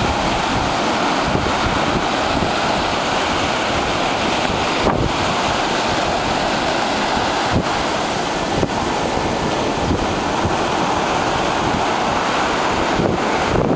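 Ocean surf breaking and washing up a sandy beach in a steady, loud wash, with wind buffeting the microphone.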